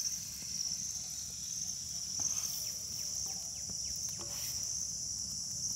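Steady high-pitched buzzing chorus of insects such as crickets, with a few faint taps scattered through it.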